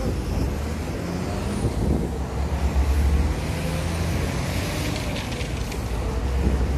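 Street traffic: road vehicle engines running at low speed close by, with a low rumble that swells briefly as a small van drives past.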